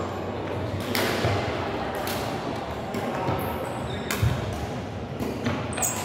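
Badminton rackets striking a shuttlecock, a string of sharp smacks roughly a second apart, echoing in a large sports hall. A heavy thud about four seconds in, the loudest moment, sounds like a footfall on the wooden court floor.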